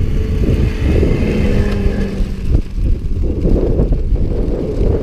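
Engine of an off-road racing 4x4 running as it crosses the field, a steady tone heard in the first half, under heavy wind buffeting on the microphone.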